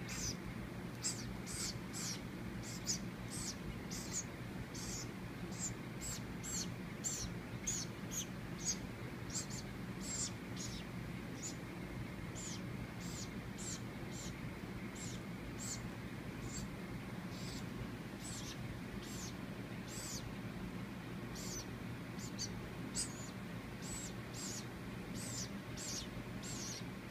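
Baby woodpecker's short, high-pitched calls repeated about once or twice a second, with a lull midway: a hand-raised nestling begging for food.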